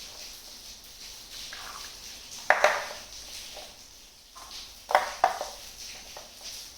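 Miniature toy kitchen pieces knocked and set down against each other: two pairs of sharp clacks, the first about two and a half seconds in and the second about five seconds in.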